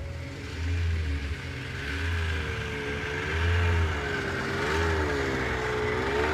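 Snowmobile engine approaching while towing a sled, getting louder, its pitch rising and falling repeatedly as the throttle changes.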